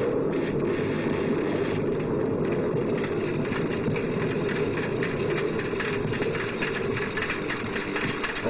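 Storm wind blowing steadily as an even, unbroken rush with no distinct thunderclaps, on an old, hissy film soundtrack.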